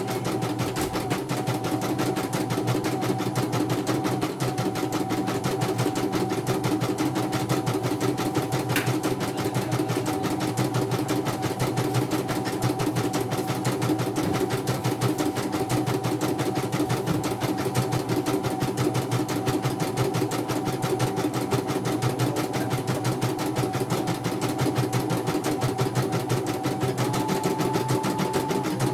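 CNY portable computerised embroidery machine stitching a design in its hoop: a rapid, steady needle-and-motor rhythm over a mechanical hum. A faint whine steps up slightly in pitch near the end.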